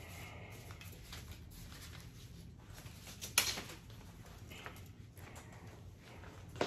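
Fabric rod sleeve rustling as it is slid off a fishing rod, with faint scattered handling noises and one sharper, louder rustle about three and a half seconds in, over a low steady hum.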